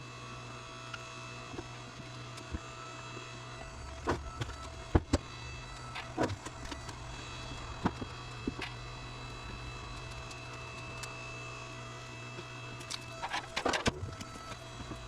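A steady machine hum, such as an engine running, with scattered sharp wooden knocks as firewood logs are handled and set down, a quick cluster of them near the end.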